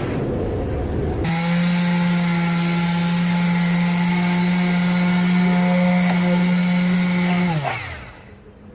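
Power tool motor starting abruptly and running at a steady speed with a whine, then winding down with a falling pitch near the end.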